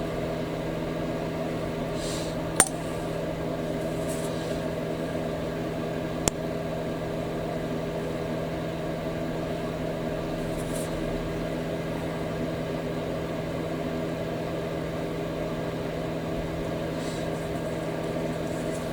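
A steady, even machine hum like a fan or small motor running, with two small sharp clicks, a little after two seconds in and about six seconds in.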